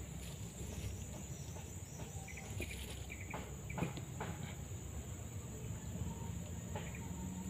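Forest-stream ambience: a steady low rush of flowing water under a continuous high, thin insect drone, with a few faint clicks and short chirps around the middle.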